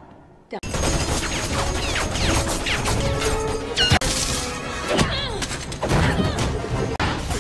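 Action film score with fight sound effects laid over it: blows, thuds and crashes. It cuts in suddenly about half a second in and stays loud and dense, with sharp hits every second or so in the second half.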